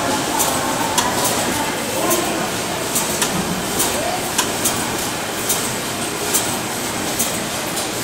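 Automatic wire cutting and crimping machine running, with a sharp clack repeating roughly every second or less over a steady mechanical noise.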